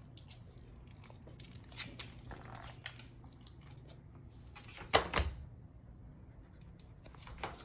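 Quiet room with a few faint rustles and soft clicks, and one sharper click about five seconds in.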